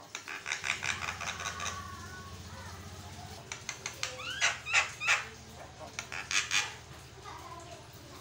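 Javan myna (jalak kebo) calling without pause: bursts of sharp, harsh chattering notes mixed with short rising whistles, easing off briefly in the middle.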